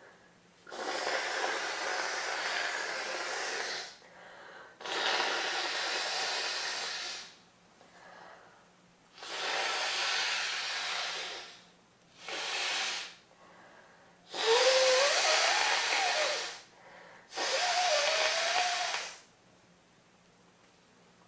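A person with a cold blowing a stuffy, congested nose: six long blows of about one to three seconds each, with short sniffs between. The last two blows carry a wavering whistling tone through the blocked nose.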